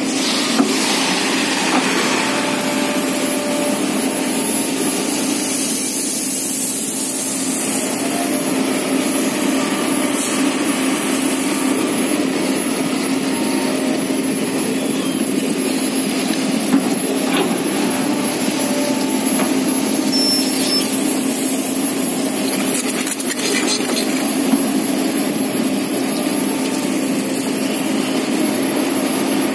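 Kobelco Geospec hydraulic excavator's diesel engine running steadily, a constant hum, with a few faint clicks.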